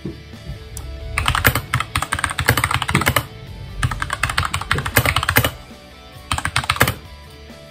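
Fast typing on a compact mechanical keyboard, quick key clicks coming in three runs: a long one starting about a second in, a second just after, and a short burst near the end.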